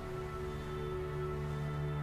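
Soft background score music with long held notes.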